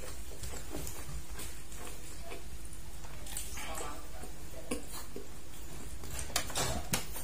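Bamboo satay skewers clicking against each other and the platter as sate is picked up and eaten, with soft eating sounds and a few sharper clicks near the end, over a steady low hum.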